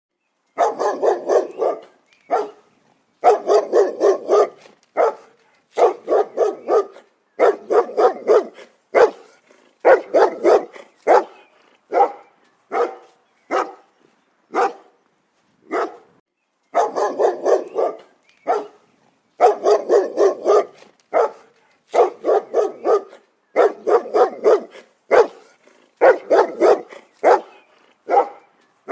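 Dog barking loudly and repeatedly, in quick runs of several barks each, separated by short pauses, with single barks scattered between the runs.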